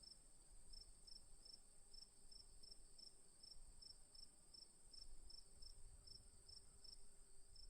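Crickets chirping, faint: a steady high trill with a regular, slightly lower chirp pulsing between two and three times a second beneath it.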